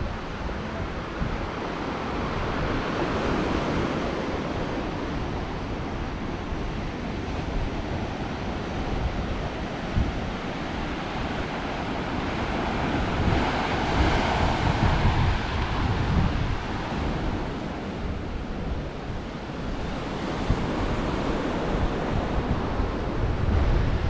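Ocean surf breaking on a rocky shore, a steady wash that swells twice, about three seconds in and again near the middle, with wind rumbling on the microphone.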